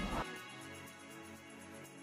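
Soft background music with quiet, held notes.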